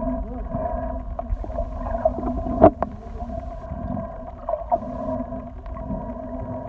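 Muffled underwater sound picked up by a phone held under water: a steady hum with a few fixed tones over a low rumble, with scattered soft knocks and one sharper knock about two and a half seconds in.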